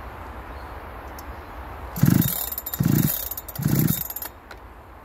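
Clone chainsaw being pull-started: three short bursts about a second apart, each with a rasp, as the starter is pulled.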